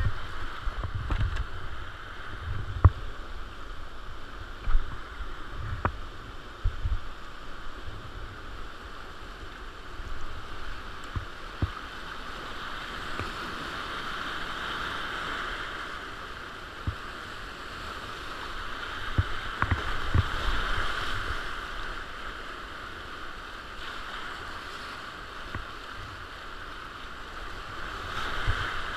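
Whitewater rapids rushing around a kayak, picked up by a GoPro mounted on the boat, the rush swelling and easing several times. Low thumps and occasional sharp knocks of water and paddle strokes hitting the hull and camera come through, most of them in the first seconds and again about two-thirds of the way through.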